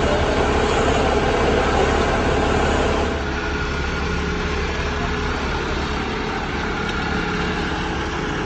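Truck's diesel engine idling steadily, a low even hum that drops a little in level about three seconds in.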